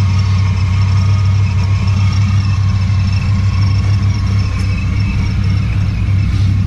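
Dodge Ram SRT-10's 8.3-litre V10 idling steadily: a deep, even low hum with a few faint steady high tones above it.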